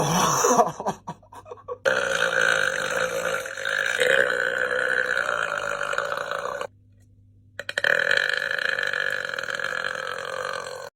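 A man belching: a short burp, then two long, drawn-out burps, the first lasting about five seconds and the second about three.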